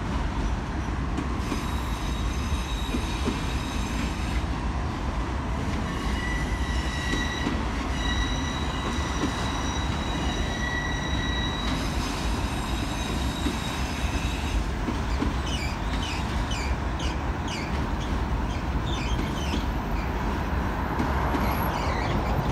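Freight train rolling through a rail yard, its steel wheels squealing against the rails on curved track over a constant rumble. The squeal holds steady high tones for the first half, then turns into wavering squeals.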